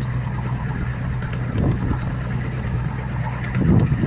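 A steady low mechanical hum like a running engine, with two louder rough swells, about a second and a half in and near the end.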